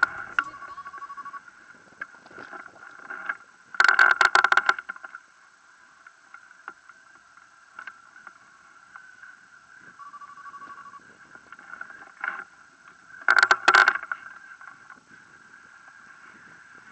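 Air rushing over a camera mounted on a hang glider in flight, with a thin steady tone underneath. Two louder bursts of rapid rattling come about four and thirteen seconds in.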